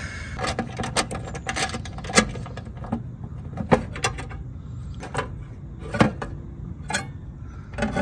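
An old dual run capacitor being handled and worked out of its metal mounting strap inside an air-conditioner condenser cabinet: a string of irregular clicks and light metal knocks over a steady low hum.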